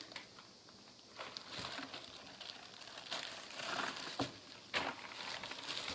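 Packaging crinkling and rustling in short, irregular spells as items from the box are handled.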